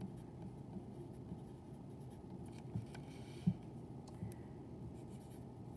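Faint scratching of a wooden pencil writing on a paper worksheet, with a few light taps of the pencil point.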